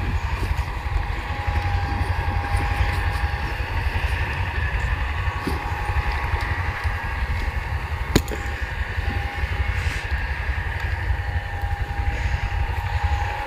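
Wind rumbling on the microphone in the open, with a faint steady hum above it. Fishing gear is handled out of a bag, with light knocks and one sharp click about eight seconds in.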